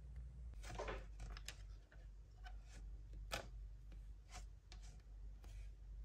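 Small plastic toy pieces being handled: scattered soft clicks and taps as a plastic unicorn figure and its comb are picked up and fitted together, one sharper click about three seconds in.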